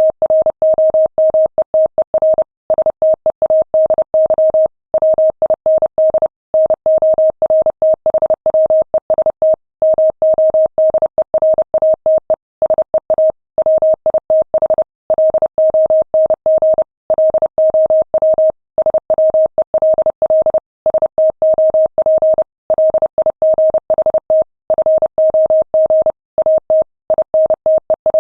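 Morse code message traffic at 30 words per minute: a single steady mid-pitched tone keyed on and off in quick dots and dashes, with short pauses between words and a faint click at each keying.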